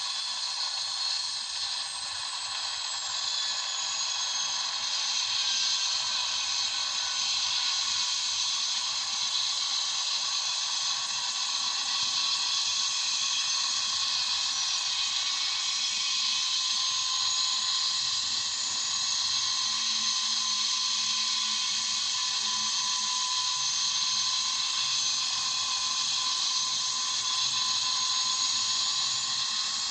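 Helicopter turbine engine, a steady high hiss with whining tones; the highest whine drifts down a few seconds in and climbs back up near the end. No rotor blade chop comes through.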